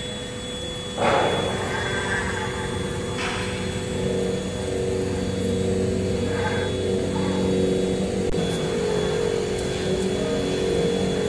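5-axis CNC router's HITECO spindle running with a steady hum as its long carving bit mills an EPS foam block, with short louder rasps from the cut about a second in and again about three seconds in.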